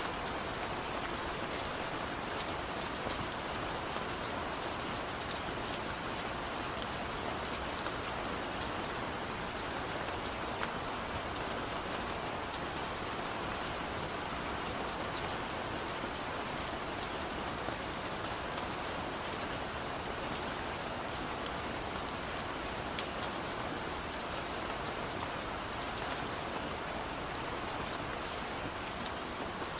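Steady rain falling on a surface, with many separate drops ticking sharply over the even hiss of the downpour. There is no thunder.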